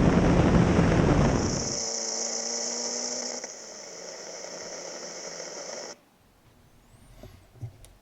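Turbocharged Honda Civic's four-cylinder engine finishing a hard pull at high boost. The engine note drops away about two seconds in as the throttle comes off, leaving a steady high-pitched hiss that cuts off suddenly about six seconds in.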